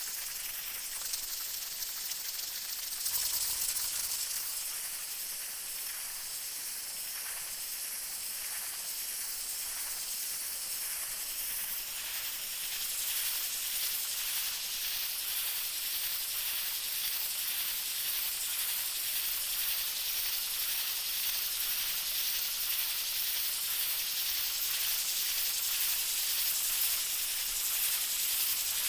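Pressure cooker venting steam: a steady, high hiss of escaping air. It swells briefly about three seconds in and grows slightly louder through the second half.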